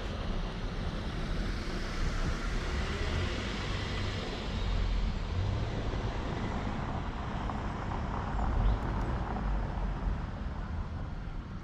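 Road traffic: a car passes, its tyre and engine noise swelling over a few seconds and fading again, over a steady low rumble.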